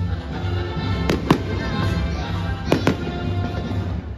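Fireworks going off: four sharp bangs in two quick pairs, about a second in and near three seconds in, over music that plays throughout.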